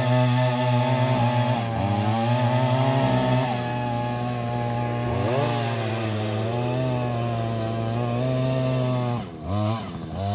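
Two-stroke petrol earth auger engine running hard as it bores into hard ground, its pitch sagging and recovering under the load of the bit. Near the end the engine speed drops sharply twice and revs back up.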